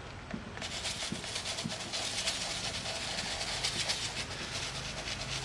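Landscapers' engine-driven power equipment starting up outside: a steady rushing noise that sets in about half a second in, with a low engine hum coming through in the second half.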